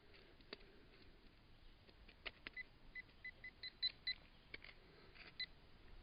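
Metal detecting gear sounding off over a dug plug of loose soil: a run of short, same-pitched beeps, quick and uneven in spacing, starting about halfway, marking a coin target in the dirt. A few soft knocks come before the beeps.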